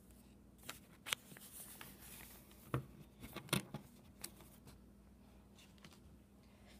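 Handling noise of things being moved over notebook paper: a few scattered sharp clicks and taps with some light paper rustling, the loudest two close together about three and a half seconds in.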